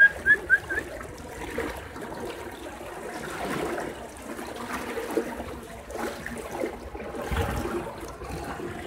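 Sea floodwater sloshing and splashing unevenly.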